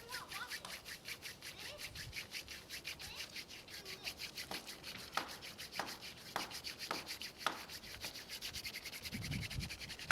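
Wooden hand-drill spindle spun back and forth between the palms in a hearth board, making a fast, even wood-on-wood rubbing that is friction fire-lighting in progress, drilling toward an ember. A few sharper knocks come roughly every half second in the middle stretch.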